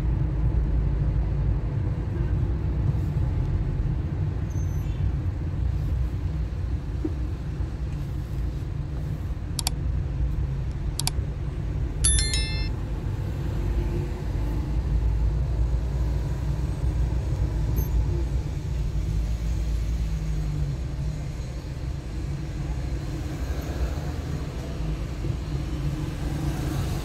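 Road and engine noise heard from inside a car driving through city traffic: a steady low rumble. A short high beep comes about twelve seconds in.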